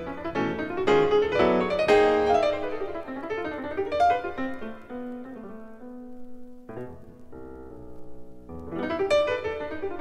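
Solo jazz piano playing from a vinyl LP: a busy run of notes that thins to a few soft held notes about halfway through, then picks up and grows louder again near the end.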